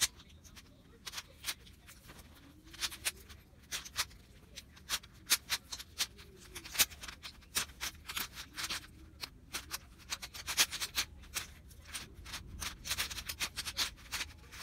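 Plastic layers of a MoYu Aoshi 6x6 speed cube being turned by hand: irregular clicks and clacks as the layers snap past each other. The cube is new and still stiff and tight out of the box.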